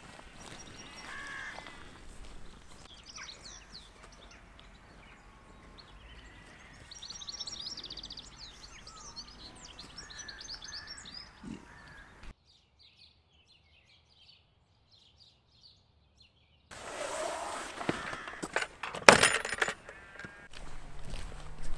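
Several small birds singing and chirping, with quick trills; the sound breaks off suddenly about twelve seconds in to fainter chirps. About seventeen seconds in comes a louder stretch of a hiker's footsteps and rustling, with a sharp knock near the end.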